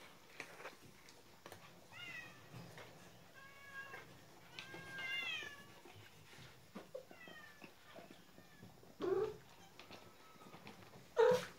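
Kittens mewing in short, high, falling calls again and again, over the small crunching clicks of dry kibble being eaten. Two louder, lower cries come near the end.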